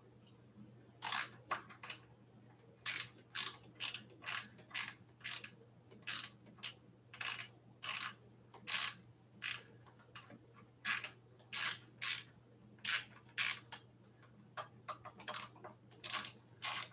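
Socket ratchet wrench clicking in short back-strokes while a bolt at the e-bike's handlebars is tightened. Brief bursts of clicks come two or three a second in runs, starting about a second in.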